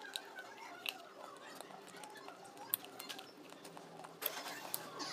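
Sharp crunches of King Gold brand slate pencil being bitten and chewed, irregular, about one a second.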